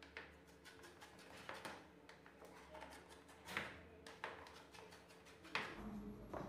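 A knife cutting rolled baklava in a metal baking tray, with about six scattered light knocks as the blade strikes the tray and the work table; the loudest come about three and a half and five and a half seconds in.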